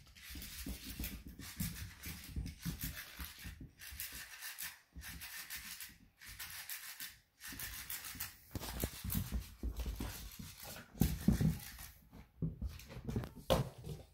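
A dog scuffling with a mechanical flopping fish toy: irregular rustling, scraping and soft thumps as paws and toy move over the rug and floor, in short spurts with brief pauses.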